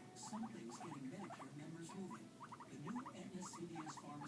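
Pet guinea pigs squeaking: short rising squeaks in quick runs of three or four, over lower wavering calls, with a few brief hissy bursts.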